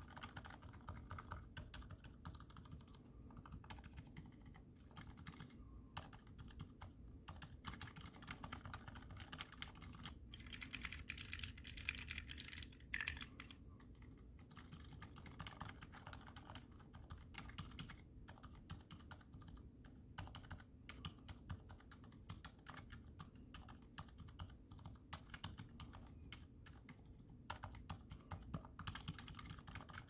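Quiet keystrokes on a Magicforce 21-key mechanical numpad with lubed Cherry MX Silent Red switches, typed steadily. A louder, quicker flurry of keystrokes comes from about ten to thirteen seconds in.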